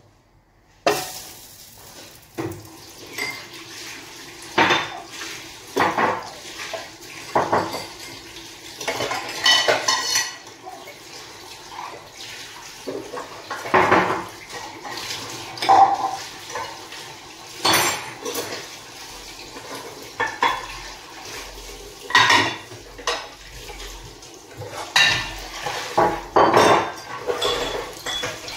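Dishes and cutlery being handled at a kitchen counter: repeated separate clinks and clatters of plates and utensils knocking together, about every second or two.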